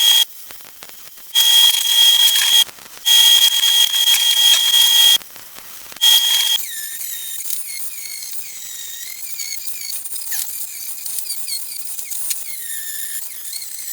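MIG welder laying short tack beads in three bursts of crackling arc, each carrying a steady high whine. After that comes a quieter stretch of wavering high-pitched tones.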